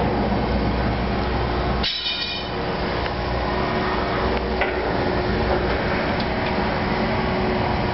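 Steady mechanical drone of a metal fabrication shop's fans or machinery, with a low hum and a faint steady tone. A short high-pitched ring comes about two seconds in.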